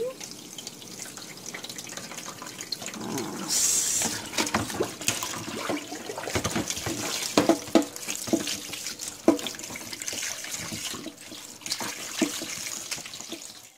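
Kitchen tap running into a stainless steel sink while raw chicken wings are rinsed and rubbed by hand in a plastic colander, with irregular wet splashes and knocks as the wings are turned under the stream.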